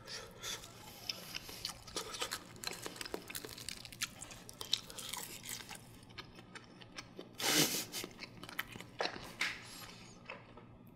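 A person chewing a mouthful of steamed egg and seasoned laver, with many small wet mouth clicks. A couple of louder noisy bursts come about 7.5 and 9 seconds in.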